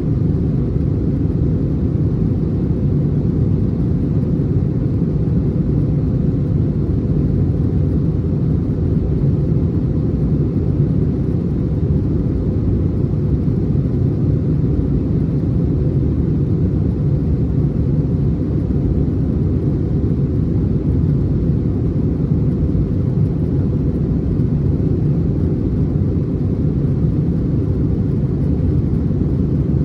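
Steady, even rumble inside the cabin of an Airbus A321 with its jet engines running, mostly deep low-pitched noise that does not change.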